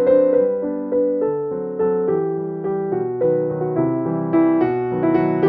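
Background piano music: a melody of struck notes, each dying away.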